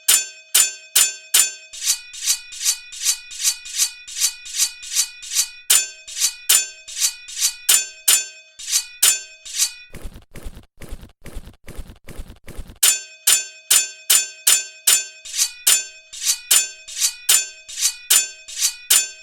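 Evenly spaced metallic ringing strikes, about three a second, in a steady rhythmic loop. About ten seconds in, a rapid rattling clatter takes over for roughly three seconds before the strikes return.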